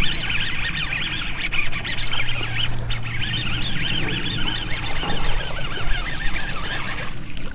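Many birds chirping and chattering without a break, their high calls overlapping.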